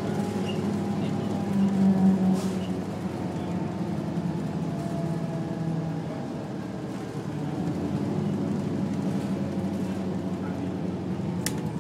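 Diesel engine of a 1996–97 MCI/Novabus Classic transit bus running, heard from inside the bus. It swells briefly about two seconds in, eases off past the middle and picks up again, with one sharp click near the end.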